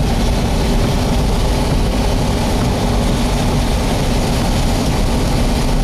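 Steady, loud rushing roar of rear-flank downdraft wind buffeting the chase vehicle and its microphone, with a low steady vehicle drone underneath.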